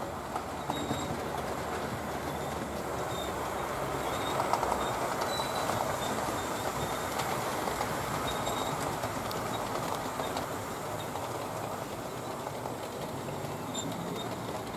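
Model railway train running along the track: a steady rumble of wheels and motor on the rails, swelling about four to five seconds in as it passes, with brief faint high squeaks.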